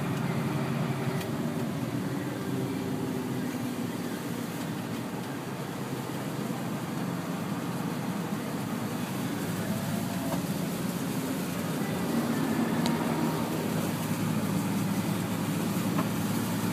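Steady engine and road noise heard inside a truck's cab as it drives through floodwater over the road, getting somewhat louder in the last few seconds.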